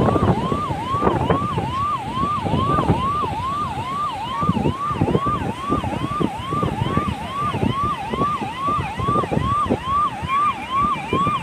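Electronic vehicle siren sounding a fast repeating rising sweep, about two cycles a second, over wind buffeting the microphone.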